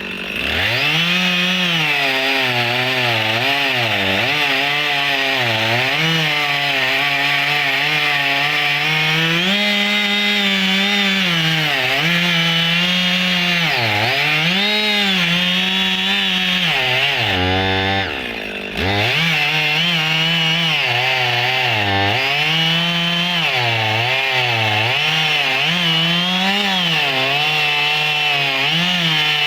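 Husqvarna 55 two-stroke chainsaw running at high revs while cutting thick firewood logs, its pitch sagging and recovering again and again as the chain loads up in the wood. About eighteen seconds in it briefly drops off, then revs straight back up.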